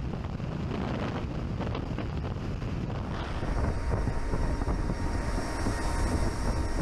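Wind rushing and buffeting the microphone in freefall. About three seconds in, this gives way to the steady engine drone and rushing air at the open rear ramp of a transport aircraft in flight.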